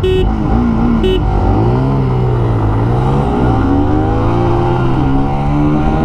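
Two short horn beeps about a second apart as the start signal, then a Bajaj Pulsar N250 and a Bajaj NS200, both single-cylinder motorcycles, launching hard from a standstill side by side. Their engine pitch climbs and drops back at gear changes, about three and a half and five seconds in.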